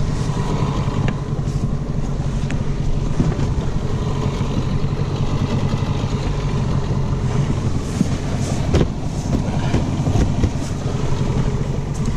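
Tohatsu 9.8 outboard motor running steadily at a constant speed during its break-in. A couple of short knocks sound near the end.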